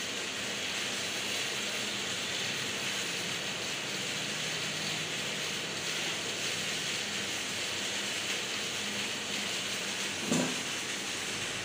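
Large-format outdoor solvent printer running while it prints: a steady hiss and whir from its fans and moving print carriage. A brief knock about ten seconds in.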